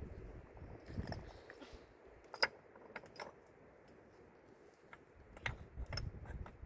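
Scattered light clicks and taps, a few sharp ones standing out about two and a half and five and a half seconds in, with faint handling noise between.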